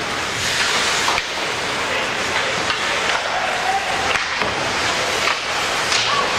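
Steady noise of a game being played in a large indoor hall, with scattered sharp smacks and knocks and faint distant calls.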